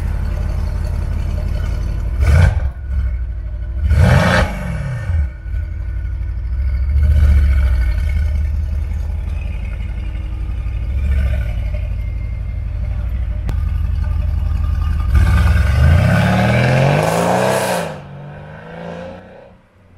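Mercedes-AMG C63 S coupe's twin-turbo V8 idling with a deep steady burble, blipped sharply twice in the first few seconds and lightly a couple more times. A long, loud rev rises and falls near the end, then the engine sound drops away.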